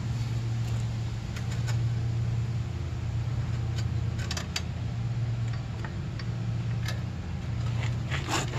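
Small metal clicks and clinks, scattered and irregular, as a drum-brake rod and its return spring are worked by hand into the rear brake arm. A steady low mechanical hum runs underneath.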